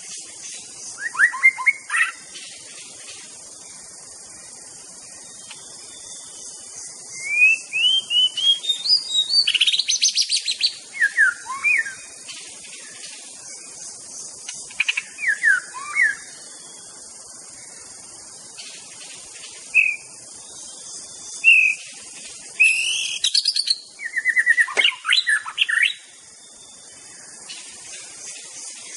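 White-rumped shama singing: several bursts of quick, varied whistled phrases and rapid trills, separated by pauses of a few seconds, over a steady high hiss.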